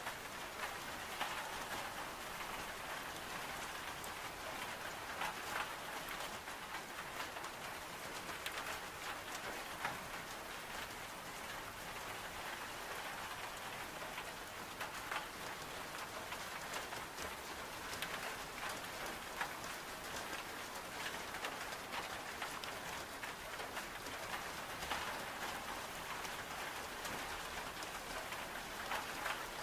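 Steady heavy rain on window glass, mixed with the small scattered crackles of a wood-burning stove.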